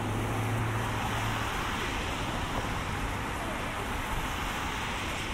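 Road traffic on a wet street: tyre hiss on wet asphalt swells through the middle and eases off near the end, with a low engine hum in the first second and a half.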